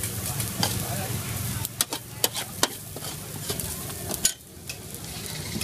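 Fried noodles sizzling on a wide, flat metal frying pan, with several sharp clinks and scrapes of metal tongs against the pan as the noodles are lifted out.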